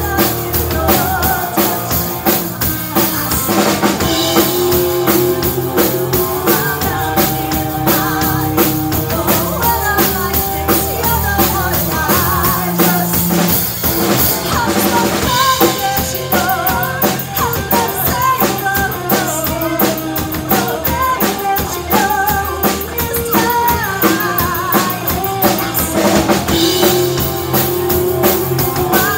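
Live rock band playing a song: drum kit keeping a steady beat with bass drum and snare, electric guitar and bass guitar, and women singing into microphones.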